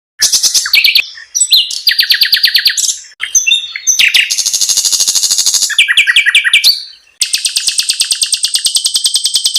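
Small songbirds singing loud, fast trills of rapidly repeated high notes in several short phrases broken by brief silent gaps, then a long steady rolling trill from a little after seven seconds in.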